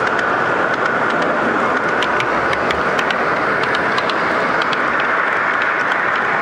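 O-gauge model train, an electric locomotive hauling wagons, rolling past with its wheels clicking irregularly over the track, over a steady hall din.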